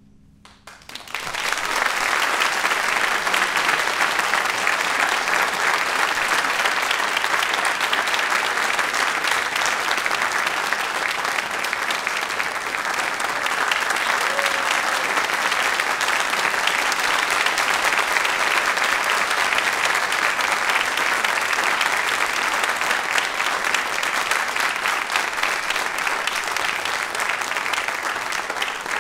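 Audience applauding after a band piece ends: a brief hush, then applause breaks out about a second in and continues steadily.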